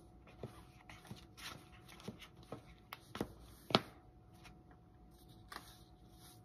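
Faint rustling and light knocks from clothes being handled and packed, a dozen or so short sounds, one sharper knock a little before the middle, then fewer.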